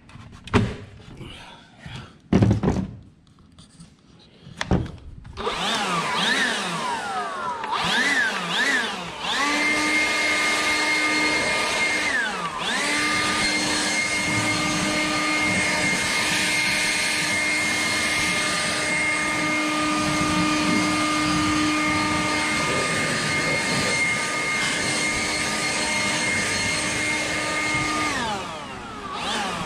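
DeWalt 20V brushless cordless leaf blower: a few clicks and knocks, then the motor spins up with its pitch rising and falling as the trigger is worked. It then runs steadily with a high whine, dips briefly about a third of the way in, and winds down near the end.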